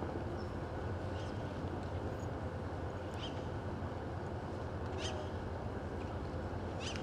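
Outdoor ambience: a steady low rumble, with a few short bird chirps spaced a second or two apart.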